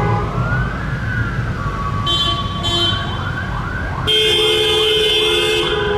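Police sirens: an electronic wail sweeping up and back down, then a fast yelp repeating its quick rising sweep. A steady, multi-tone horn, in the manner of a German Martinshorn, sounds in short blasts at about two seconds, then comes in loud and continuous from about four seconds in.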